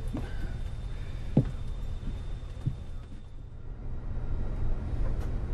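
Steady low rumble of an airliner cabin in flight, with a few short dull knocks, the sharpest about a second and a half in.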